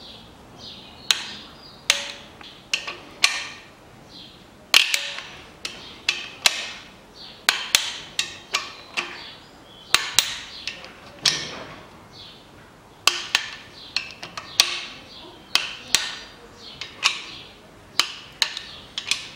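Click-type torque wrench clicking and ratcheting on the main bearing cap bolts of an engine block as they are tightened to 40 N·m. It gives sharp metallic clicks with a brief ring, at irregular intervals of about a second.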